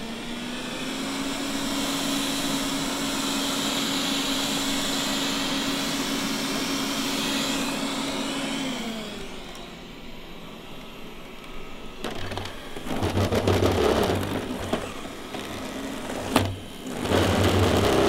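Roborock S4 robot vacuum cleaning carpet: its suction fan runs with a steady whine that rises slightly at the start and winds down about nine seconds in. After a short lull, louder uneven scraping and humming, with a sharp click near the end, as the robot drives up onto a desk's metal base and over cables.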